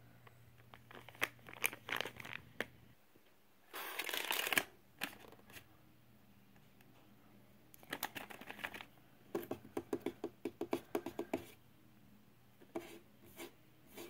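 Soft plastic pouch of makeup cleansing wipes crinkling while handled, in several short bursts. The loudest is a dense crinkle about four seconds in, and a quick run of light clicks follows around ten seconds in as the pack is pressed into a drawer.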